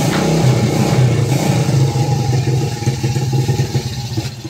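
Small underbone motorcycle's engine running steadily just after starting, with slight rises and falls in engine speed.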